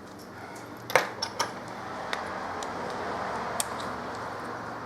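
Small metal screwdrivers clinking and clicking against the laptop and against each other, a sharp click about a second in and a few lighter ones after, over a soft scraping of tool on screw while working a very tight battery screw.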